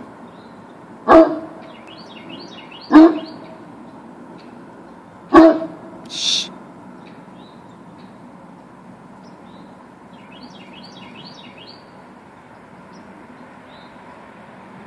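Dog barking: three deep single barks about two seconds apart in the first half, with a short hiss just after the last. Between them come two runs of a small bird's rapid, repeated chirping.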